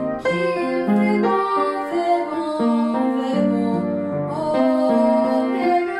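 Upright piano playing an accompaniment while a woman sings high held notes with vibrato.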